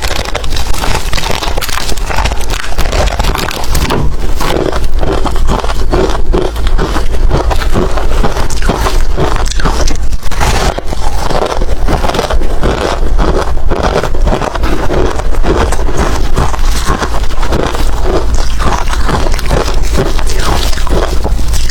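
Hard ice being bitten and chewed close to the microphone: a continuous run of loud, rapid crunching and crackling.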